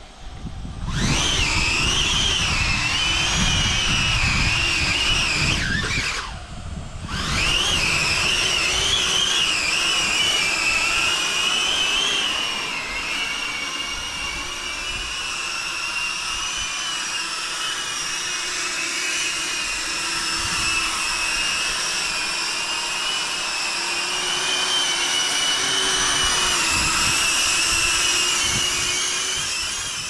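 Small cinewhoop FPV drone's propellers and motors whining in flight, the pitch wavering up and down with the throttle. The whine starts about a second in and cuts out for about a second around six seconds in.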